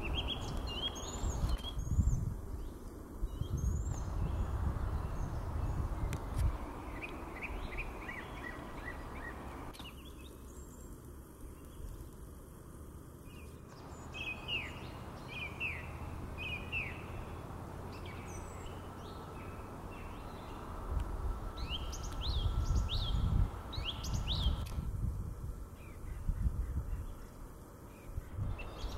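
Small songbirds chirping and calling over and over in the woods, with gusts of wind rumbling on the microphone. From about two-thirds of the way in, a faint steady hum and a growing low rumble come up as an electric freight train approaches along the line.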